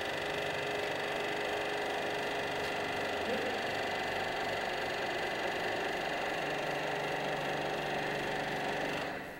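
Ruffinatti IM70 confectionery kneader running: a steady mechanical whir with several fixed tones. It shuts off near the end.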